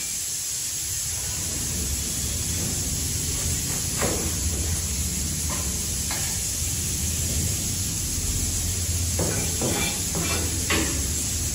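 Chef's knife cutting vegetables on a cutting board: a single chop about four seconds in, two more a couple of seconds later, and a quick run of about five chops near the end. Under the chops runs a steady hiss with a low hum.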